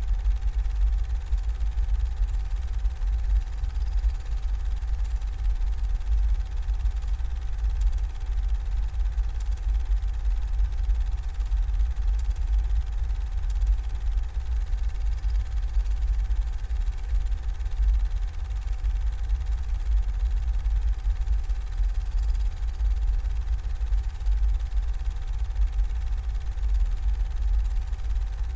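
Steady low rumble with a faint steady hum above it, unchanging throughout.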